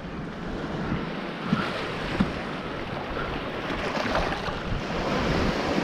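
Steady sea wind buffeting the microphone, with waves and surf washing.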